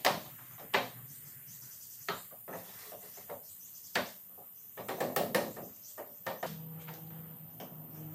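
Wooden knocks and taps as a loose wooden piece is set and shifted by hand inside a table's drawer opening, with a quick cluster of knocks about five seconds in. A low steady hum comes in near the end.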